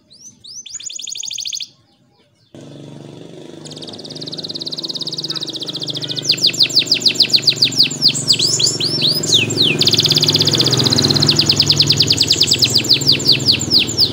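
Canary singing: a short burst of rapid trilled notes, a pause, then a long song of fast repeated trills and rolls of quick downward-sweeping notes. A steady low hum lies under the song from about two and a half seconds in.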